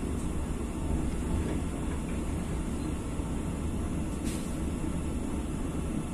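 Steady low rumble of a train carriage in motion, heard from inside, with one short click about four seconds in.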